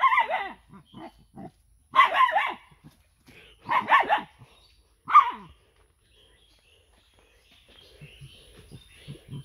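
A dog barking at goats in short loud bouts: one at the start, a pair about two seconds in, another pair about four seconds in, and a last bark just after five seconds. It then stops, leaving only faint sounds.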